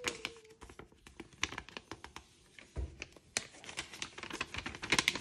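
A folded paper instruction leaflet rustling as it is handled and unfolded, in a string of short, light ticks that come thickest near the end.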